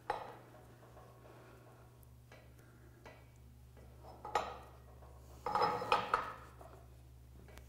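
Light metallic clinks and knocks of a ball-and-trunnion universal joint's steel housing and pin being handled, with a quick run of clinks about five and a half seconds in.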